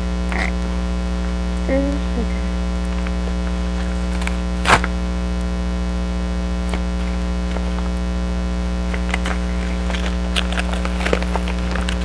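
Steady electrical mains hum underneath scattered small clicks and crinkles of a package being opened by hand, with one sharp snap about five seconds in.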